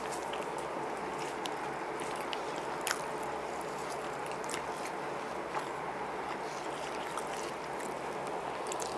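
People eating chicken biryani by hand and chewing, with scattered small clicks from mouths and fingers working the rice, over a steady background hiss.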